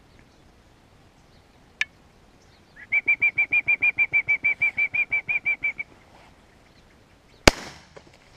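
A single shotgun shot fired at doves about seven and a half seconds in, with a short echoing tail. Before it, a bird calls in a fast, even run of about twenty high notes lasting some three seconds, and a sharp click sounds about two seconds in.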